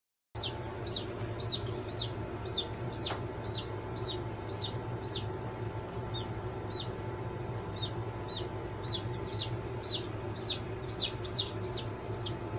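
Two-week-old chicks peeping: short, high, falling peeps about two a second, coming quicker and overlapping near the end, over a steady low hum.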